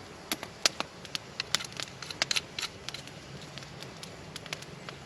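Wood campfire crackling, with irregular sharp pops and snaps as the fire catches and burns up.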